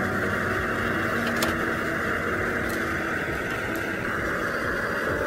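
Stew boiling hard in a griddle pan over a portable gas burner: a steady hiss with a couple of faint pops.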